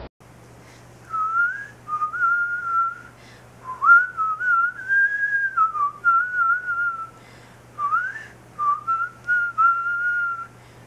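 A person whistling a tune in short phrases, with quick upward slides into some notes and a slight waver on the held ones.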